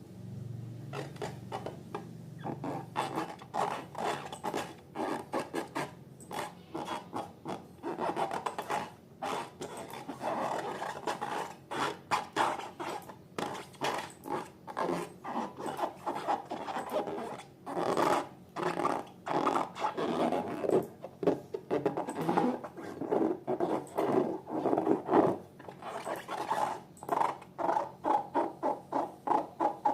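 Slime being worked by hand: a dense, irregular run of sticky clicks and crackles, several a second.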